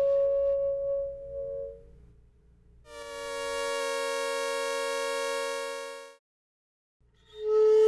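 A woodwind multiphonic, two close pitches sounding together, fades out over the first two seconds. After a pause, a synthesized imitation of the same multiphonic, generated with an impulse pattern formation model, plays as a steady tone for about three seconds and cuts off. Near the end a new woodwind multiphonic starts up loudly.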